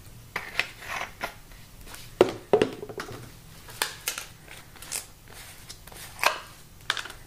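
Plastic bottles handled on a workbench: a cap screwed back onto a lacquer bottle, bottles picked up and set down, and the cap of a plastic smokeless powder bottle twisted off. A string of short clicks and knocks, the loudest two a little after two seconds in.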